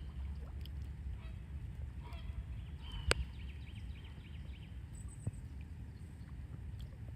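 Bird calls: brief calls, then a quick run of short repeated notes a little after three seconds in, over a low steady rumble. A single sharp knock sounds just after three seconds in.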